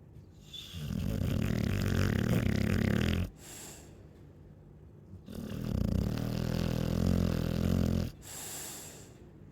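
Chow chow dog snoring while asleep: two long snores of about two and a half seconds each, each followed by a short breathy exhale.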